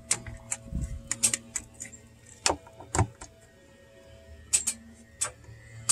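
Plastic engine cover and trim being pressed and clipped into place by hand on a Chevy Silverado engine bay: scattered sharp clicks and knocks, the loudest about three seconds in, over a steady low hum.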